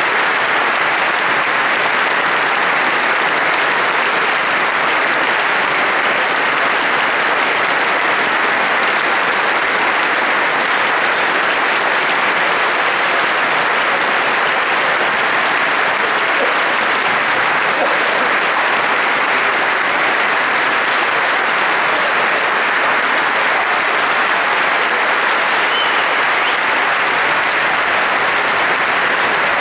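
A large concert audience applauding: sustained, dense clapping at a steady level, echoing in a big hall.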